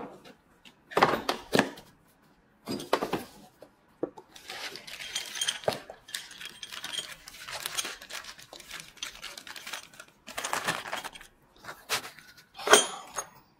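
Rummaging and handling of small hard parts: short clicks and metallic rattles in irregular bursts, with rustling in between.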